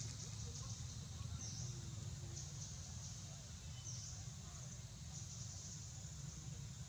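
Outdoor ambience: a steady high-pitched buzz that swells in short pulses, over a constant low rumble.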